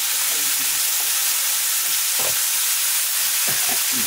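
Sliced mushrooms sizzling in hot oil in an iron kadai, a loud steady frying hiss just after they were added to the oil.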